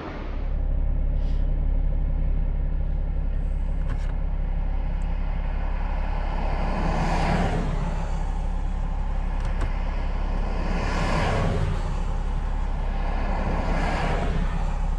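Steady engine and road drone heard from inside a vehicle driving on the highway, with other vehicles whooshing past three times, about halfway through, a few seconds later and near the end.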